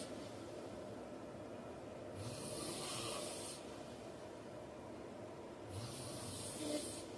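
A man snoring in his sleep: two snores about three and a half seconds apart, each lasting about a second and a half, with a breathy hiss of air over a low rumble.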